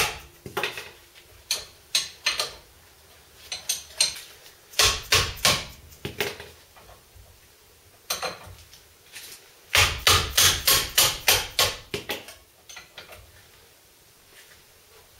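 Mallet striking a spanner to break loose the tight 19 mm brake caliper bolts on a VW T25 (T3) bus front hub: several bursts of sharp metallic knocks, the longest a quick run of about ten blows two-thirds of the way through, then a few lighter clicks.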